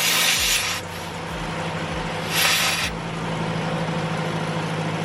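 Gas-station air compressor running with a steady hum while air is pumped into a car tyre, with two short bursts of air hissing: one at the start and one about two and a half seconds in.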